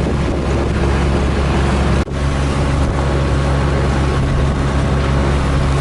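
Boat engine running steadily with a low, even drone and a hiss of wind and water over it. The sound drops out abruptly about two seconds in, then resumes with a slightly changed pitch.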